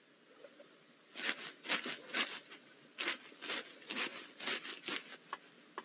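Barred owl shifting in its nest box, a run of dry crackling scratches and rustles in the wood-shaving bedding, a couple a second, from about a second in until near the end.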